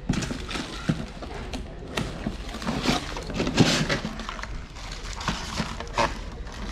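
Irregular clatter of objects being handled: scattered knocks, clicks and rustling, busiest about three to four seconds in.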